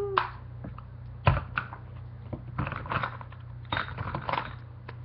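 Handling of makeup items played back sped up: a string of quick clicks, taps and brief rustles over a steady low hum.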